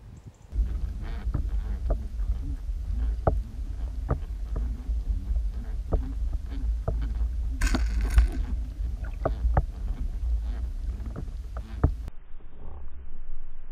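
Water moving past an underwater action camera in its waterproof housing as it travels through the lake: a muffled low rumble with scattered sharp clicks and knocks, and a brief hissing burst about eight seconds in.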